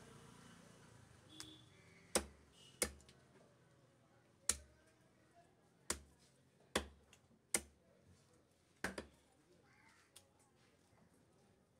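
Heavy cleaver chopping through shark meat onto a wooden log chopping block: about seven sharp chops at uneven intervals.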